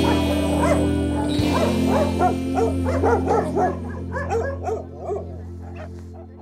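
Dogs barking over and over, several barks a second, over background music of held chords; barks and music both fade toward the end.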